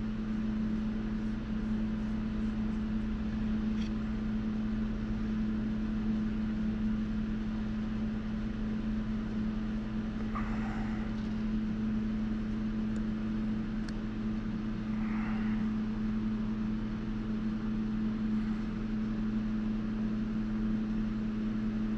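Steady low machine hum, one strong deep tone with fainter overtones, holding level throughout. Two faint short sounds come about halfway through.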